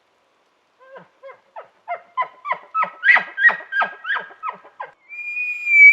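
Elk calling: a run of about fourteen short yelping notes that grow louder, then, near the end, a long steady high whistle begins, the whistle of a bugle.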